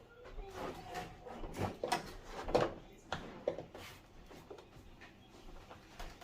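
A cluster of knocks, clunks and scrapes from handling a flat-screen LED TV while it is being taken apart, quieting after about four seconds.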